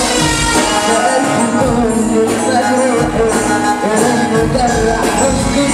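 Loud live Arabic pop song through a PA: a young male singer sings into a microphone over an amplified band with frame-drum percussion.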